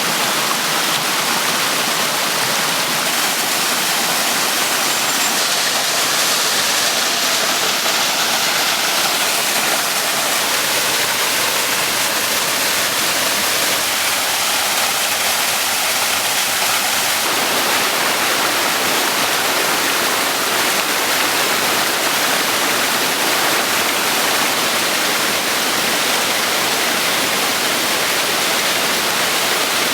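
Water rushing steadily over a small waterfall, a loud, unbroken splashing hiss that shifts a little in tone a couple of times.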